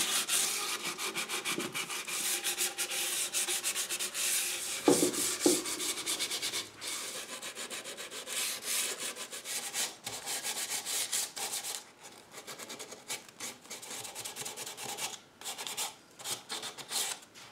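Sandpaper, 220 grit, rubbed by hand in quick back-and-forth strokes along the worn, splintery edges of an oak chair to ease them smooth. The strokes grow lighter and sparser toward the end.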